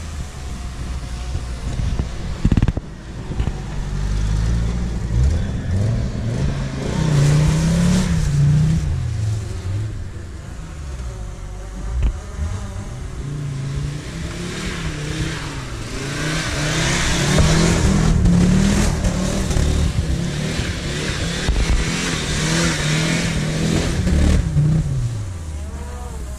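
Audi Quattro Turbo's turbocharged five-cylinder engine revving up and falling back again and again as the car spins doughnuts, its tyres spinning and churning through soft mud.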